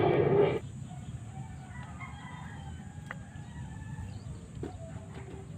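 A loud engine drone cuts off abruptly about half a second in. What follows is quieter: faint, distant rooster crowing, with a couple of soft clicks.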